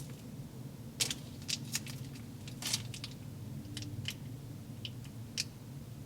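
Short clicks and crinkly taps from handling small plastic toy pieces and packaging of a slime-making kit, about eight of them spread unevenly over a few seconds, over a steady low hum.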